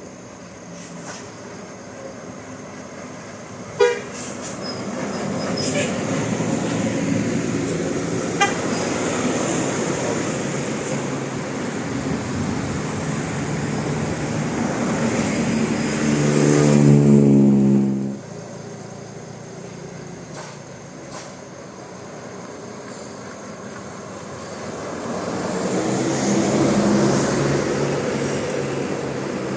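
Road traffic passing, and about sixteen seconds in a bus sounds a loud multi-tone telolet horn for about two seconds, its pitch stepping, before it cuts off suddenly. Another heavy vehicle swells past near the end.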